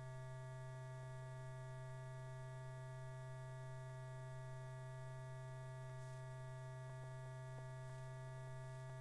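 Steady low electrical hum with a faint buzz of overtones on an old film soundtrack, and a few faint ticks near the end.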